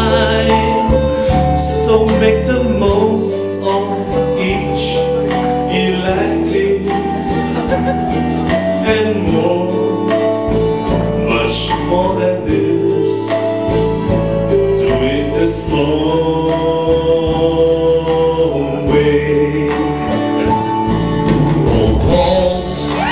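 A man singing a song into a handheld microphone over band accompaniment.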